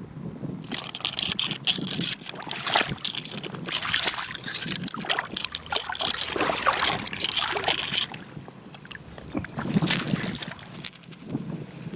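Shallow water sloshing and splashing in irregular strokes, louder for the first eight seconds, with another burst near ten seconds.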